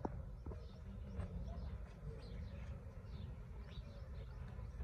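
Small birds chirping, with repeated short, falling chirps over a low steady rumble.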